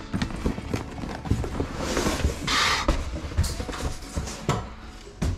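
Handling noise from a heavy tripod in its soft case being lifted and shifted out of its cardboard shipping box: scattered knocks and rustling, with a short scraping hiss about two and a half seconds in.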